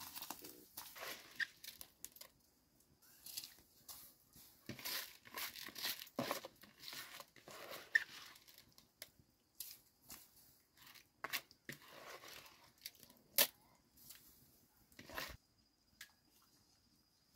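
Rice being washed by hand in a plastic basin of water and dropped into a pot of boiling water: irregular wet rubbing and splashing of the grains, with a few sharp clicks.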